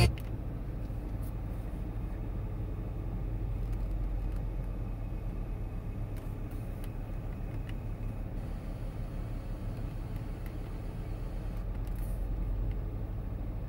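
Car engine idling, heard inside the cabin as a low steady rumble, with a few faint clicks of the radio's buttons and knob being worked.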